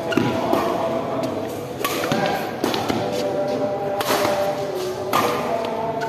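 Badminton rally: rackets hitting a shuttlecock back and forth, a sharp crack about every second or so, five hits in all. Music and voices carry on steadily in the background.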